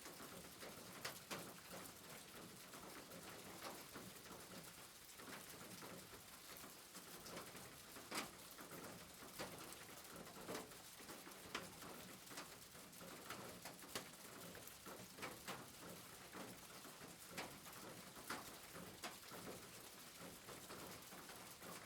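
Faint steady rain with irregular sharp drops ticking on a hard surface.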